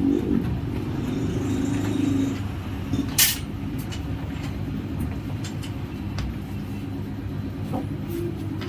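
Motor vehicle engines running in passing road traffic, a steady low rumble, with one sharp click about three seconds in and a few fainter clicks later.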